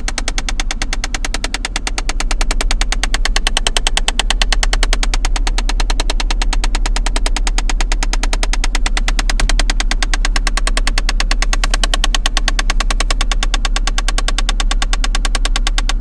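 Fast, even tapping from under the hood of a running 2005 Jeep Grand Cherokee (WK), a steady stream of many clicks a second, like drumsticks being tapped, over a low steady hum. It grows a little louder about two seconds in.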